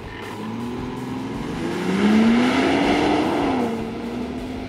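Land Rover Defender 110 P400's petrol six-cylinder engine under hard acceleration from a launch in Normal mode. The engine note climbs and is loudest about two seconds in, then drops back about three and a half seconds in.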